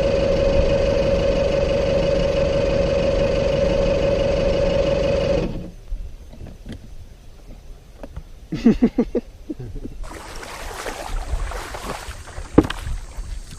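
A small motor whirring steadily at one high pitch, which winds up just before the start and cuts off sharply about five and a half seconds in. Quieter knocks and a hiss follow.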